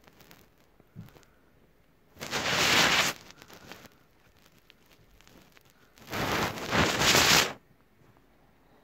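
Two bursts of loud rustling and rubbing right on the phone's microphone, each about a second long: one about two seconds in and one about six seconds in.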